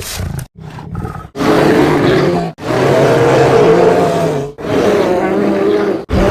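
Creature roar sound effects: a couple of short, quieter grunts, then three long, loud, pitched roars in a row, each lasting one to two seconds with short breaks between them.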